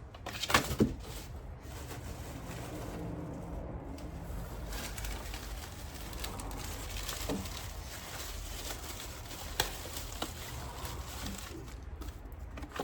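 Parts and packaging being handled, with a few sharp clicks and knocks. A faint low tone is held for a few seconds in between.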